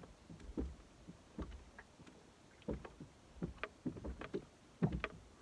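Water slapping against the hull of an ocean rowboat at sea, in irregular short thumps.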